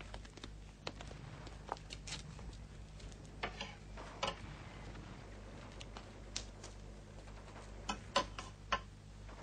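Sparse clinks and knocks of a ladle and metal mess tins as food is dished out of a pot, a few close together near the end, over a low steady hum.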